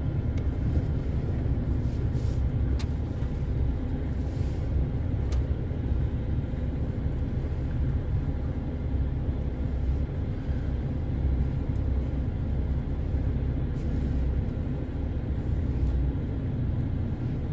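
Truck's diesel engine running steadily at low speed as the truck pulls slowly forward, a constant low rumble with a few faint clicks.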